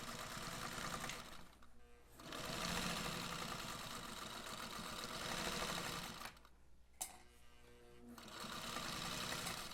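Domestic sewing machine stitching a seam in three runs, pausing briefly about two seconds in and again for a couple of seconds around six seconds in. A single sharp click comes during the second pause.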